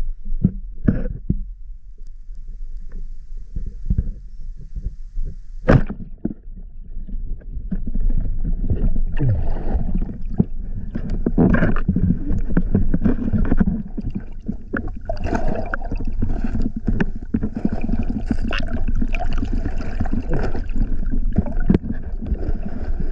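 Muffled underwater noise through the camera's housing: a few knocks and a sharp tap, then from about eight seconds a dense churning rumble of water with many small knocks and bumps as the spear and diver move among the rocks.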